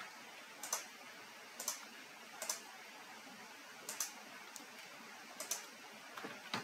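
Scattered clicks of a computer keyboard and mouse, about six single clicks a second or so apart.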